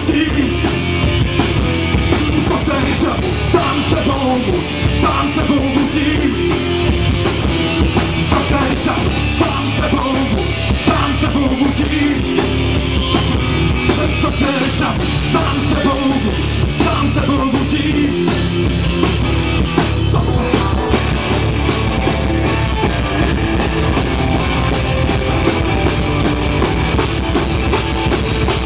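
Rock band playing live through a PA: drum kit and distorted electric guitars driving a steady beat, with a singer's voice over them.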